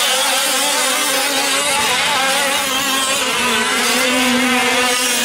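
Several 1/5-scale gas RC trucks' small two-stroke engines buzzing at once, overlapping at different pitches that rise and fall as the trucks accelerate and slow through the track.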